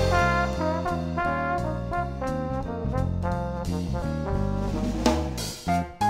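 Background music: an upbeat brass-led tune over a walking bass and drums.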